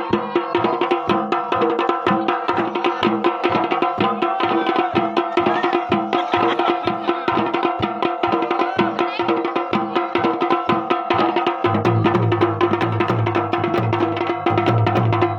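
Dhol and damau drumming a fast, steady jagar rhythm of dense, evenly repeated strokes. About twelve seconds in, a deeper low pulsing tone joins.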